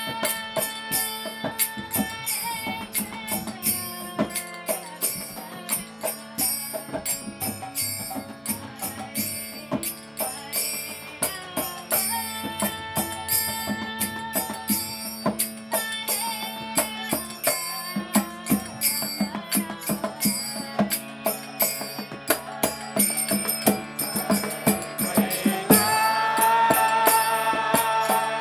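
Live kirtan music: sustained drone chords under a steady percussion beat, with a chanting voice coming in during the last few seconds.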